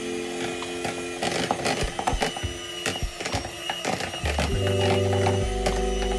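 Electric hand mixer whirring as its beaters work through crumbly cream cheese, with irregular clicks of the beaters against the bowl. Background music with held chords plays over it, and a deep bass note comes in about four seconds in.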